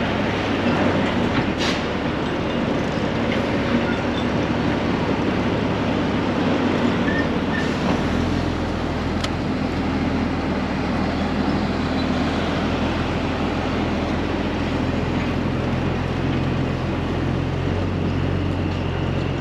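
2001 Peterbilt 379 semi with a Cat C15 diesel running down the road: steady engine and road noise. About eight seconds in, a low, even engine drone comes in stronger.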